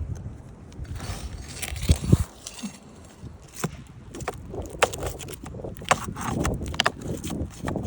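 Irregular clicks, knocks and scrapes of hand work removing an asphalt roof shingle, as its nails are pulled out.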